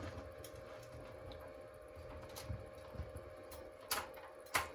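Flame-effect aromatherapy humidifier running with a faint steady hum, and two sharp plastic clicks near the end, about half a second apart, as its light button is pressed.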